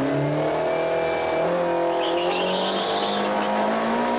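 Rally car engine heard from inside the cockpit, accelerating hard and shifting up, its pitch climbing and dropping at each gear change. A short tyre squeal joins in about the middle.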